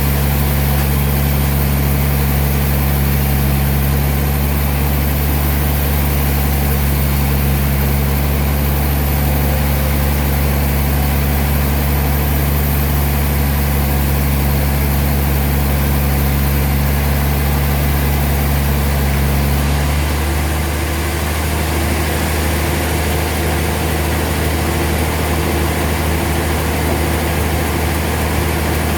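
Sawmill machinery running with a steady low hum. Its tone shifts about two-thirds of the way through.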